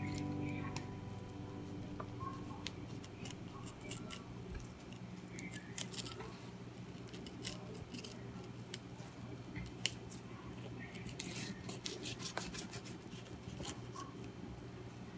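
Fillet knife cutting along a scaled goatfish on a plastic cutting board: irregular crisp scratches and crunches as the blade works through skin and flesh, over a steady low hum.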